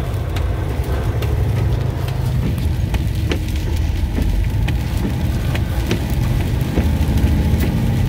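Steady low drone of a semi truck's engine and tyres on a wet highway, heard inside the cab, with scattered sharp ticks of rain striking the windshield.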